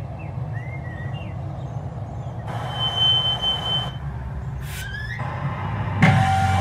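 Sound effects from a music video's intro, heard through playback: a low steady rumble with faint chirps, a hiss with a high steady squeal about three seconds in, then from about six seconds a louder car burnout, tyres squealing over the engine.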